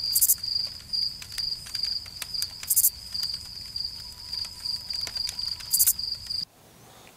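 Crickets chirping in a steady, pulsing high trill, with scattered small clicks and crackles; the chirping stops abruptly near the end.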